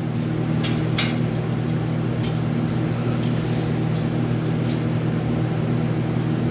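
A steady, even machine hum in the shop, with a few light, sharp taps, the loudest about a second in, as the aluminum frame is knocked toward square.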